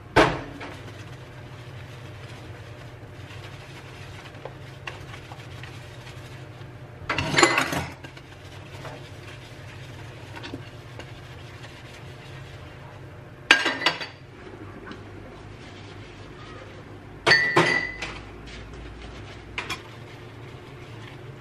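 Dishes clinking and clattering in a stainless steel sink while being washed and set in a wire drying rack: four separate clatters, one right at the start and others about 7, 13 and 17 seconds in, some with a short ring, over a steady faint low hum.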